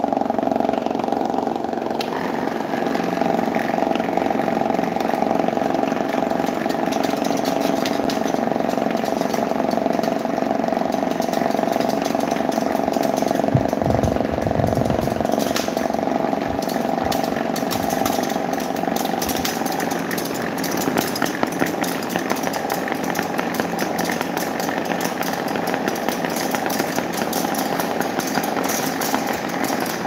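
Several small electric desk fans running together: a steady motor hum and whir of plastic blades. The hum fades about two-thirds of the way in while a fast rattle grows, with a few low thumps near the middle.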